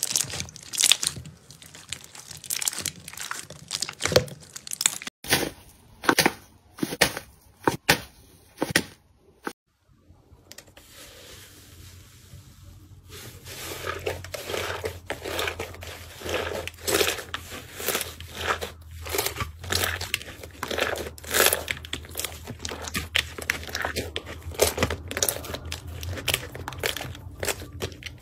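Hands squeezing and kneading slime in a bowl, giving dense runs of wet crackles and pops close to the microphone. The crackling stops for about a second near the middle, then resumes denser over a faint low hum as a softer slime is pressed and folded.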